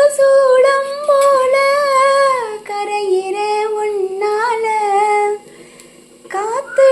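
A high voice holding long, slowly sliding notes, with a break of about a second near the end before a rising slide back into a held note.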